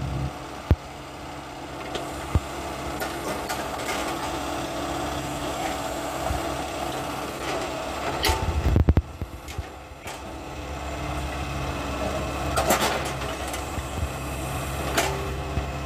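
Furukawa mini excavator's diesel engine running steadily while the hydraulic arm digs and lifts soil with its bucket. A few sharp knocks and clanks come from the bucket and arm, with a louder rumble and thump about eight to nine seconds in.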